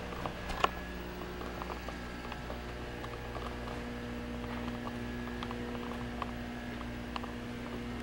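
Indoor room tone: a steady low hum with scattered faint clicks and taps, and one sharper click just under a second in.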